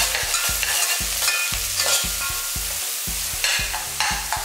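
Sliced onions sizzling as they fry in groundnut oil in a pan, with repeated short scrapes as they are stirred and turned.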